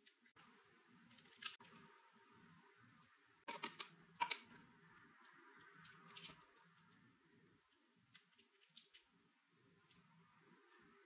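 Mostly near silence with a few small, sharp clicks and taps as a bit is fitted into a rotary tool handpiece, the loudest about four seconds in.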